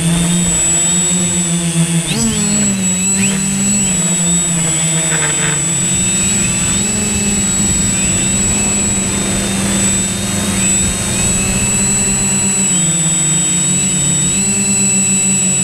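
Quadcopter camera drone's electric motors and propellers whining, heard loud and close from the drone itself. The pitch dips and then rises again about two seconds in as it manoeuvres, then holds fairly steady with small shifts, over a constant thin high whistle.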